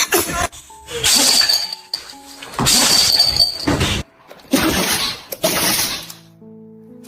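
Four loud crashes that sound like shattering glass, with music playing between them and a held chord near the end.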